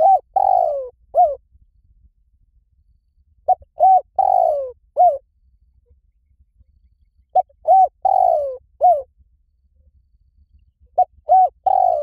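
Spotted dove cooing: a four-note phrase, the third note longest and sliding down in pitch, repeated about every four seconds.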